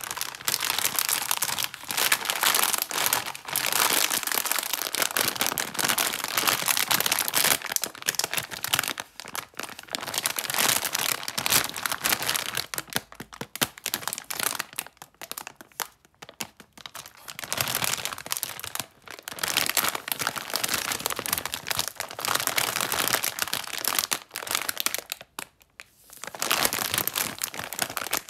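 Plastic snack bag of Knoppers Minis wafers crinkling as fingers squeeze and rub it. The crinkling comes in long bursts with short pauses between them.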